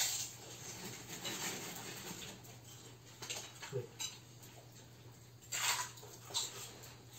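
People eating noodles from plates: forks and chopsticks clinking and scraping on the plates and a plastic bag crinkling in short irregular bursts, the loudest about five and a half seconds in, over a steady low hum.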